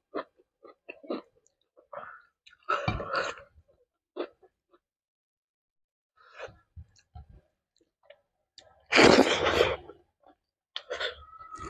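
Eating sounds: chewing and short mouth clicks while rice is eaten by hand, coming in scattered bursts. About nine seconds in there is a sudden loud burst of noise lasting about a second.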